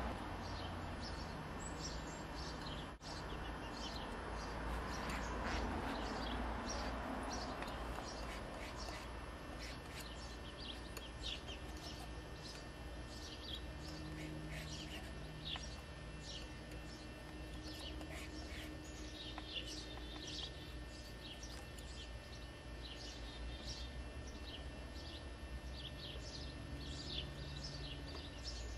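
Small birds chirping: many short, quick chirps scattered throughout, over a steady low background hum.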